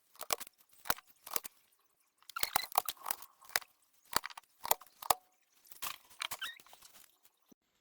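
Irregular sharp plastic clicks and clatter from handling the HP SK-2502C keyboard. They come thickest in the middle and thin out toward the end.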